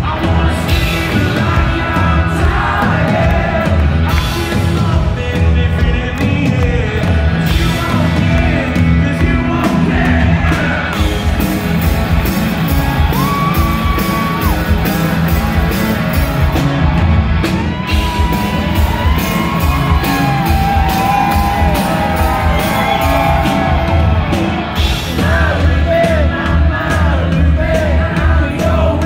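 Live rock band playing loud in a concert hall, with drums and electric guitar, singing, and yells and whoops from the crowd.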